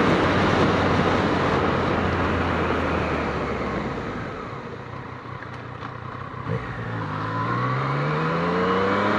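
Motorcycle ride heard through the bike's camera: wind and road rush at first, easing off midway, then the engine revving up with a rising pitch as the bike accelerates near the end.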